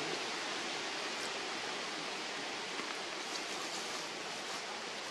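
A steady, even hiss of outdoor background noise, with a few faint ticks.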